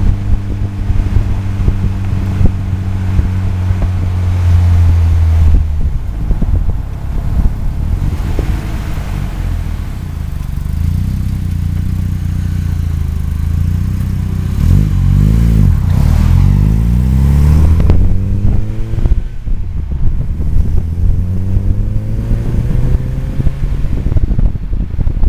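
Volkswagen Scirocco 16V's four-cylinder engine heard from outside the car, with road and wind noise on the microphone: it runs steadily, the revs fall as the car slows almost to a stop, then it pulls away and the pitch climbs twice as it accelerates through the gears.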